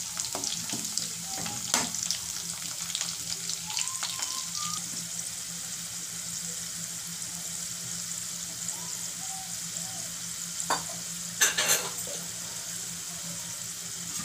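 Garlic cloves frying in hot oil in an aluminium kadhai: a steady sizzle with scattered crackles as the garlic browns, and a few sharper clicks about two seconds in and again around eleven seconds in.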